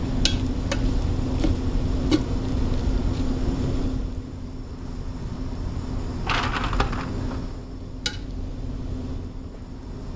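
Perforated metal skimmer clinking and scraping against a large aluminium pot while scooping cooked rice, with a few light clinks near the start and a short scrape about six seconds in, over a steady low kitchen hum.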